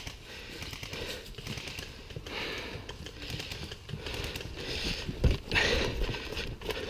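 Footsteps crunching and rustling through dry fallen leaves, coming in uneven patches with scattered clicks.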